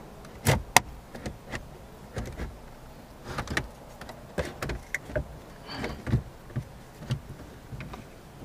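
Irregular clicks, knocks and light scrapes of hand tools and plastic dashboard parts being handled while a car's head unit is unbolted. Two sharp knocks about half a second in are the loudest.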